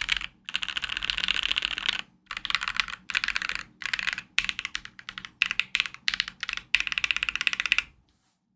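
Keychron Q3 mechanical keyboard, taped and fitted with lubed and filmed Thick Thock Marshmallow switches and PBT keycaps, typed on in fast runs of keystrokes broken by short pauses. The typing stops about eight seconds in.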